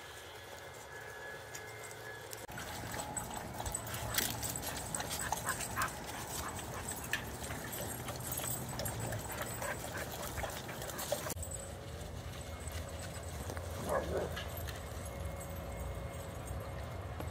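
A group of dogs playing, with scuffling and many quick clicks and knocks of paws and claws. About 14 s in, one dog gives a short whine.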